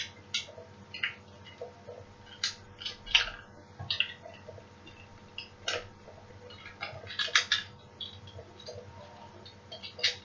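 Hard plastic clicks and clacks from a small Transformers toy figure being handled and its parts moved. They come irregularly, with a quick cluster of several clacks about seven seconds in.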